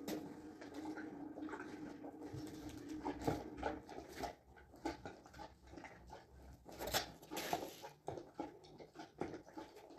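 Saddle and tack being handled on a horse's back: scattered rustles and light clicks and knocks of leather and metal fittings, with a sharper knock about seven seconds in.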